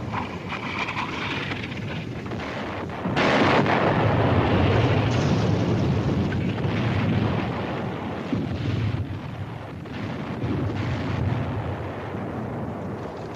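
Artillery barrage: a steady rumble of shelling, with a loud shell explosion about three seconds in whose rumble dies away over the next few seconds.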